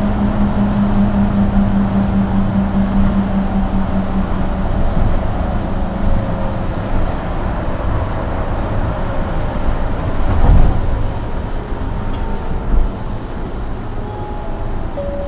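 Isuzu Erga Hybrid city bus running, heard from inside the cabin: a diesel-hybrid drivetrain drone with a steady hum that fades out about five seconds in. A sharp thump comes about ten seconds in, with a smaller knock shortly after. The overall sound eases off toward the end.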